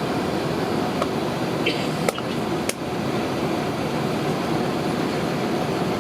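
Steady airliner cabin noise, the hum of the engines and air-conditioning, with a couple of sharp clicks a little over two seconds in.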